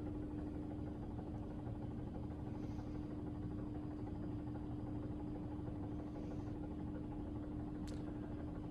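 A steady hum: one constant tone over a low, even rumble, with a faint click near the end.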